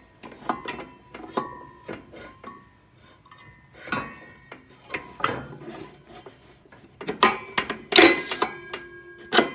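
A series of metal clanks and knocks, some ringing briefly, loudest about seven to eight seconds in, as a motorcycle's front wheel and axle are worked back into the fork.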